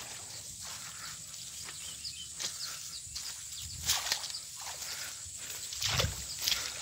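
Footsteps through tall grass, with the stalks swishing and rustling against legs in irregular strides; a couple of louder swishes come about four and six seconds in.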